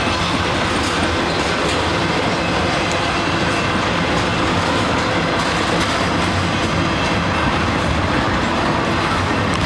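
A train rolling past close by, a steady loud noise of wheels on rail with a faint clicking running through it.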